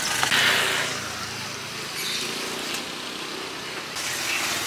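Roadside street noise: traffic running by, with faint voices.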